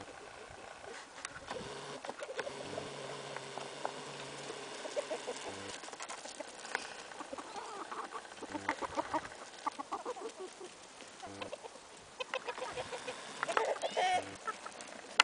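A flock of chickens clucking, many short calls overlapping, coming thicker around the middle and again near the end.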